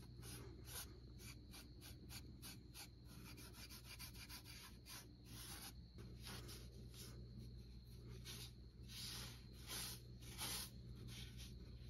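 Faint, irregular rubbing strokes of a Scotch-Brite scouring pad and a shop rag being worked by hand over a Jeep steering knuckle, with a few louder strokes near the end.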